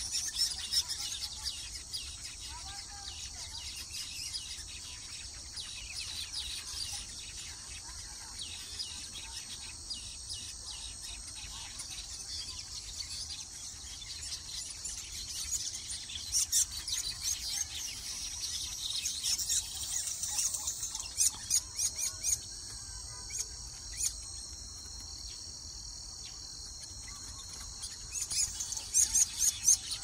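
Weaver birds chattering and buzzing at their colony: a dense, steady high chatter, with louder sharp bursts of calls about halfway through and again near the end.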